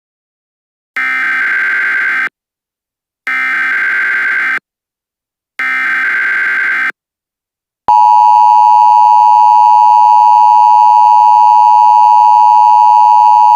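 Emergency Alert System broadcast tones: three evenly spaced bursts of SAME header data tones, each about a second and a half long, then, about eight seconds in, the louder steady two-tone EAS attention signal, which marks the start of an emergency alert.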